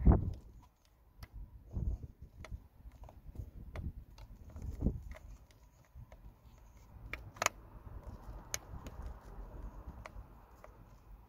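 Wind buffeting the microphone in gusts, with small plastic clicks and taps as fingers work a bulb holder into the back of a heater control panel; two sharper clicks come about two-thirds of the way through.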